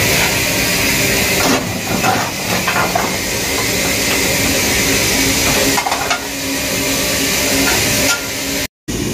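Steady hiss of steam in the cab of an LMS Jubilee class steam locomotive, with clusters of metallic knocks and clanks as lumps of coal are broken with a hammer and shovelled into the firebox. The sound breaks off abruptly near the end.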